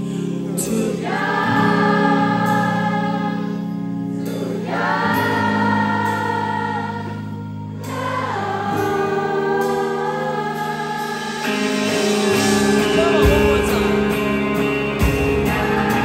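Live pop-folk band music: long, held sung notes over acoustic guitar and band, with the voice sliding in pitch near the middle and a few low drum thumps near the end.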